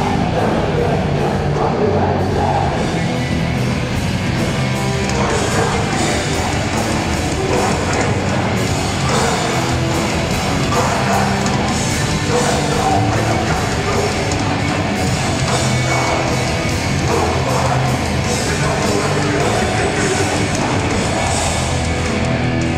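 Hardcore punk band playing live and loud: distorted guitars and drums, with shouted vocals.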